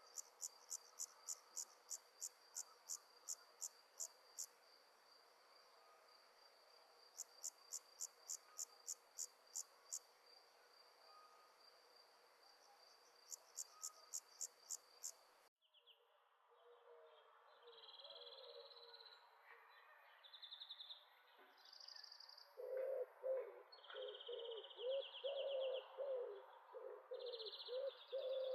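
Night insects calling: a steady high trill with three series of sharp, evenly spaced chirps, about two to three a second. About halfway through the sound changes abruptly to bird calls, short high chirps over a low, rapidly repeated call that grows louder toward the end.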